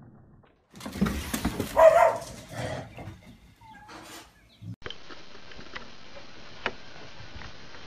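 A dog barking in a quick series, the loudest bark about two seconds in. From about five seconds on there is a steady faint hiss with a single click near the end.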